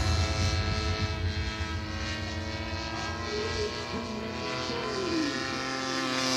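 Super Honey Badger radio-controlled aerobatic airplane flying overhead, its motor and propeller giving a steady buzzing drone that fades a little in the middle and grows louder again near the end.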